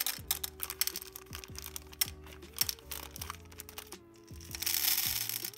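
Skittles candies clattering as they are poured into an empty non-stick pot, a rapid patter of clicks that thins out after about two seconds, then a short rustle of noise near the end as the last ones are shaken from the bag. Background music with a steady beat plays throughout.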